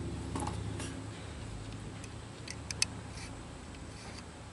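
Small metallic clicks and ticks of hands and a tool working the breaker points inside an open tractor distributor while the point gap is set, the sharpest a quick cluster of three near the middle. Under them, a low hum fades away over the first second and a half.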